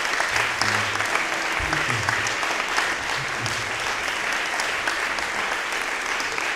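Audience applauding: steady clapping from a seated crowd at the end of a song.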